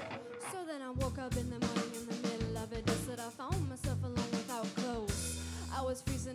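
Rock band playing live in an instrumental passage: electric guitar lead with notes that slide and bend over a steady drum kit beat of snare, kick and cymbals.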